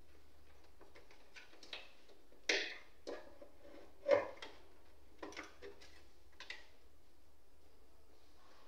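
Scattered clicks and knocks of hands handling power-supply cables and plugging connectors inside the open steel case of an HP ProDesk 600 G1 tower, with two louder knocks about two and a half and four seconds in.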